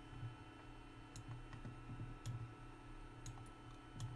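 Computer mouse clicking: about six faint, short clicks at irregular intervals as shots are picked up and dropped in a drag.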